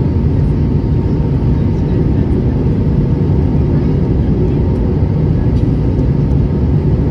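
Steady cabin noise of an Airbus A320-family jet airliner on approach, heard from a seat beside the wing: a low rumble of the engines and rushing air, with a faint steady hum running through it.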